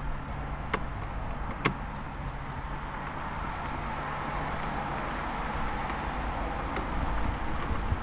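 Two light clicks of a small hand tool working behind the steering wheel hub as the airbag is fitted, over a steady low background rumble.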